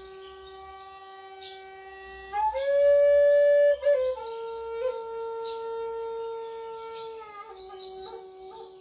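Flute playing long held notes: a low note, a step up to a louder higher note about two and a half seconds in, a middle note from about four seconds, then back to the low note near the end. Bird chirps sound throughout.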